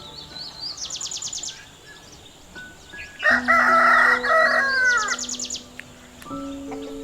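A small bird gives two quick, high, rapidly repeated chirp trills, one near the start and one near the end. Between them a rooster crows loudly, the crow ending in a falling tail.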